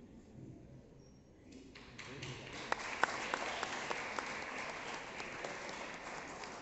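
Audience applauding, starting about a second and a half in and quickly growing to a steady clapping, with a few sharper claps standing out.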